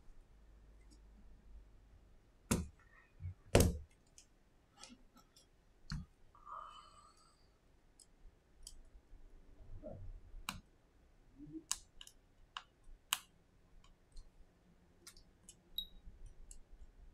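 Irregular small clicks and taps of an iPhone XS being handled during a screen replacement: the replacement display and phone frame knocking lightly together, and a plastic spudger working inside the phone. Two louder knocks come between about two and a half and four seconds in.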